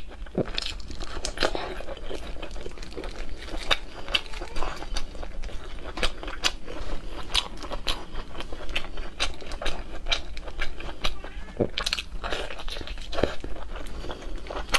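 Close-miked chewing and biting of sausage: a dense, irregular run of sharp wet clicks and crunchy crackles from the mouth.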